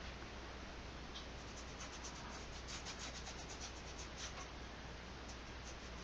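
Flat nylon paintbrush scrubbing acrylic paint onto a textured canvas, a run of faint, quick strokes laying down a dark base coat.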